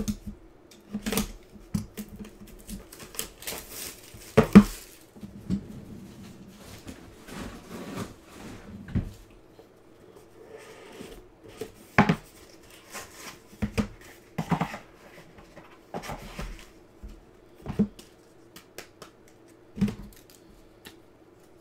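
Hands opening and handling a cardboard trading card box and the rigid plastic top loaders inside it: an irregular run of taps, clicks, knocks and rustles, the loudest knock about four and a half seconds in.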